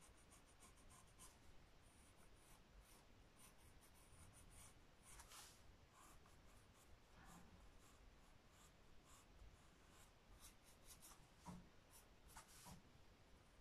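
Faint scratching of a coloured pencil on squared notebook paper, in many short repeated strokes as the drawing's colouring is gone over again.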